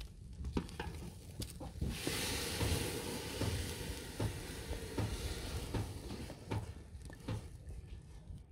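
A pot over a wood fire sizzling loudly as something goes into the hot pan, the hiss starting suddenly about two seconds in and fading over a few seconds as steam billows up. A metal spatula knocks and scrapes against the pot while stirring.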